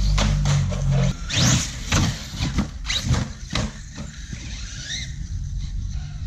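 Electric motor of a radio-controlled 1/8-scale monster truck on an 8S battery, whining up in several short rising bursts as the throttle is punched, with scuffing and knocks from the tyres and chassis in between.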